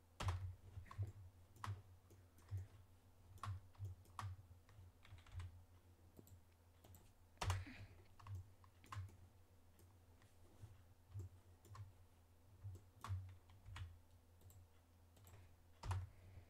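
Quiet, irregular clicks of a computer mouse and keyboard keys, roughly one a second with a couple of short pauses, over a faint steady low hum.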